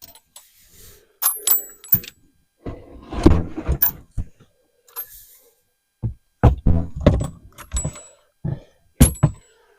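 Tools and metal objects clinking, clattering and thudding as they are handled and moved between storage containers, in irregular knocks with a few short ringing metallic clinks.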